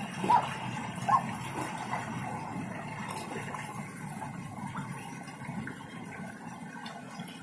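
Children swimming and splashing in a pool, a steady wash of water noise, with two short high-pitched cries from a child within the first second or so.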